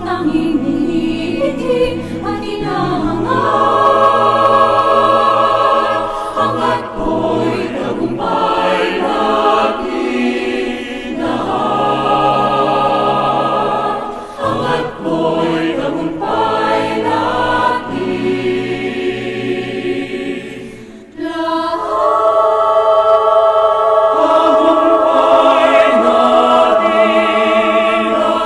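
Choral music: a choir singing long, held notes with a wavering vibrato. It dips briefly about three-quarters of the way through, then comes back fuller and louder.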